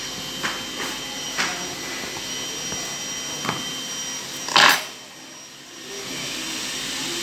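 A steady machine hum with hiss runs throughout, over a few light clicks of a plastic die-lock tray being handled on the bench. About four and a half seconds in comes a short, louder clatter as the tray is picked up.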